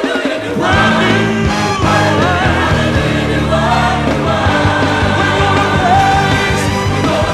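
Gospel choir singing with full band accompaniment: many voices in harmony over bass, keyboards and drums.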